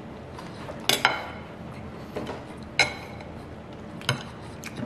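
Metal cutlery clinking against a plate: several sharp clinks with a short ring, the loudest about a second in and just before three seconds in.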